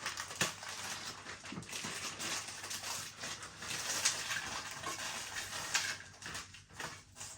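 Frozen chips, chicken bites and peppers being broken up and mixed by hand in a tray: a continuous rustle with many small clicks and clatters, dying away near the end.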